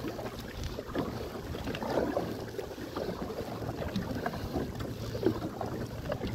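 Kayak paddle blades dipping and splashing in the water as the kayak is paddled along, with wind on the microphone.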